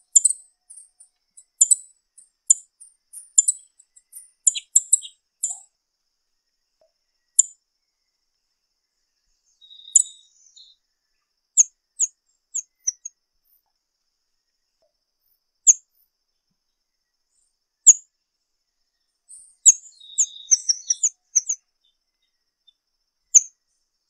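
Blue-browed tanager giving short, very high-pitched call notes: a quick run of them at first, then single notes a second or more apart and a brief cluster near the end.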